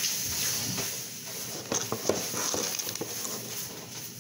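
Light kitchen handling noises: a few short clicks and knocks, bunched about two seconds in, over a steady hiss.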